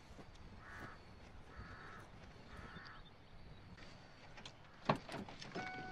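A crow cawing three times, about a second apart, followed by a single sharp thump about five seconds in.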